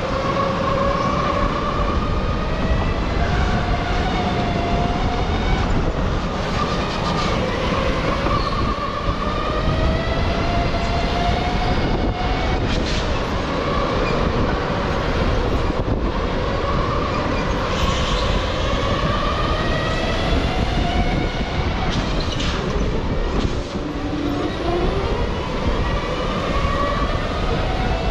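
Electric go-kart motor whining, its pitch gliding up as the kart speeds up and down as it slows, over and over, above a steady low rumble.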